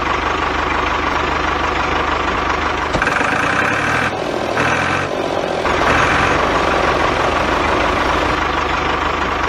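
DIY mini tractor's motor running steadily with a low, even beat. From about three seconds in, a higher whine comes and goes a few times.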